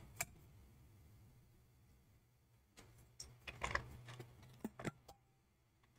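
Quiet room with a scatter of light, quick clicks, one at the start and a cluster between about three and five seconds in.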